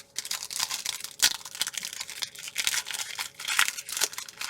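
Foil Pokémon booster pack wrapper being crinkled and torn open: a dense run of crackling and ripping.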